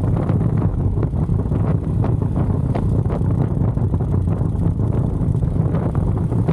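Harley-Davidson Street Glide Special's V-twin engine and exhaust running steadily at cruising speed, with wind rushing over the microphone.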